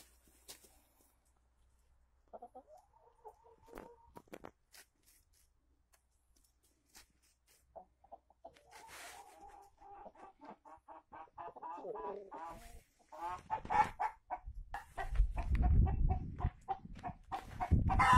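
Brahma chickens clucking: a short call, then a quick run of clucks about three a second that grows louder. A loud low rumble on the microphone runs under the last few seconds.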